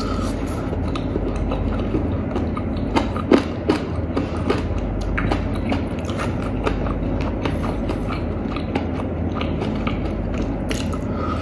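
Close-up chewing and biting of crispy fried chicken, with small crunches and wet clicks as meat is pulled from the bones by hand. A cluster of sharper crunches comes about three seconds in.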